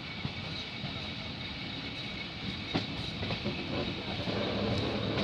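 Train running on the track, heard from a carriage window: a steady rumble and hiss of the wheels on the rails, with a few sharp clicks about halfway through, growing slightly louder toward the end.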